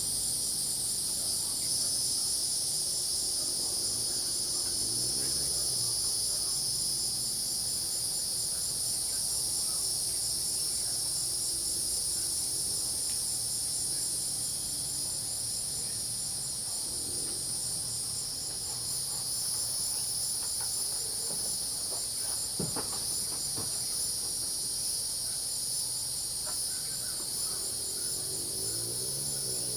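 A dense, steady night chorus of crickets and cicadas, high-pitched, with a fast pulsing trill running through it. Frogs call faintly and low beneath.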